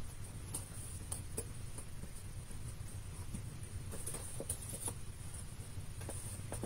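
Faint, scattered clicks and rustles of paper cut-outs being handled and trimmed with small craft scissors, over a steady low hum.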